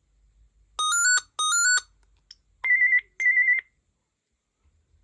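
Gigaset C630A cordless phone handset ringing for an internal call: two short chirps, each stepping up in pitch over three quick notes, then two short warbling beeps at a higher pitch.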